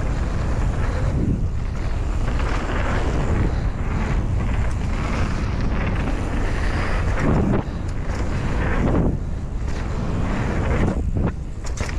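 Wind rushing over the microphone and a mountain bike's tyres rolling over a dirt jump trail at speed, a steady loud rumble.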